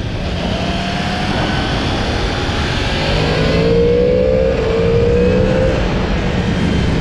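Yamaha MT-10's crossplane inline-four engine, on its stock exhaust, running under way, its pitch climbing gently and growing a little louder midway, over a steady rush of noise.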